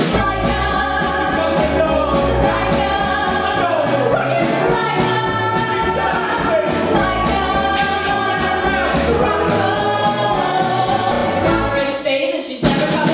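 Three voices, women's and a man's, singing a song together into microphones over backing music with a steady bass pulse; the music drops out briefly near the end, then picks up again.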